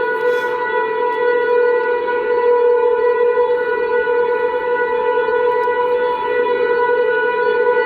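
Simulated tornado siren from a siren app, playing one steady, unwavering tone with no rise or fall, in the manner of a warning signal.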